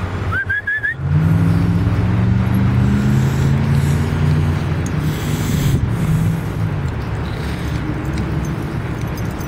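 A heavy vehicle's engine passing, a steady low drone that swells in about a second in and fades after about six seconds, over constant traffic noise. A short high warbling note comes just before it.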